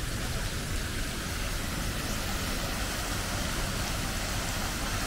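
Water from a large public fountain splashing and cascading into its pool: a steady, even rush.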